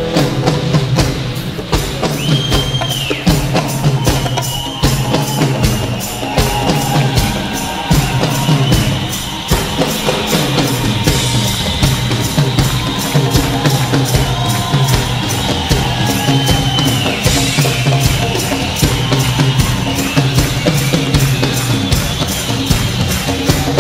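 Music with a steady, fast beat and a tambourine-like percussion line.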